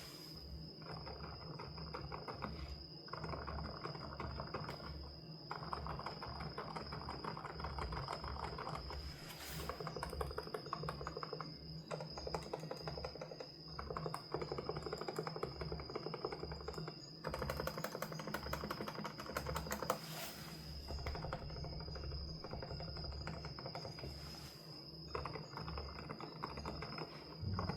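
Fast typing on a Dareu A104 Pro Flex mechanical keyboard with Silent Oak switches: dense runs of key clicks a few seconds long, broken by brief pauses.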